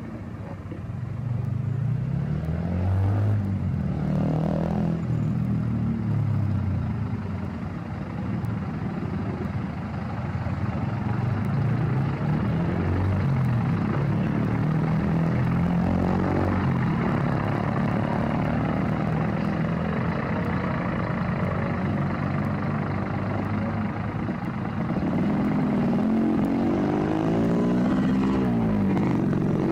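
Scania P380 heavy-haul truck's diesel engine running loud as the tractor and its lowboy trailer drive past, its pitch rising and falling several times with throttle and gear changes.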